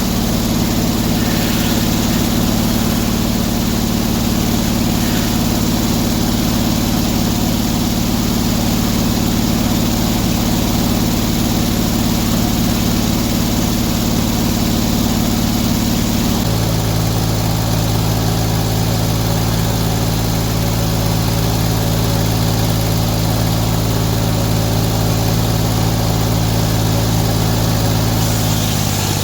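Portable sawmill's engine running steadily, its tone changing about halfway through.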